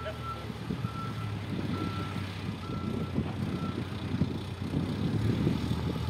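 Reversing alarm on a JCB 3DX backhoe loader, beeping about once a second over its running diesel engine. The beeps stop about four seconds in, and the engine runs on under an uneven low rumble.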